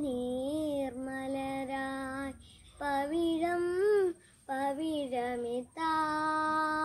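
A boy singing unaccompanied: a few short sung phrases separated by brief pauses, then a long held note beginning near the end.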